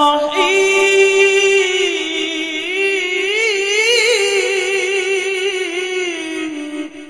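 Male qari reciting the Quran in melodic tilawah style into a microphone: one long, high held note that wavers through ornaments in the middle, then fades out near the end.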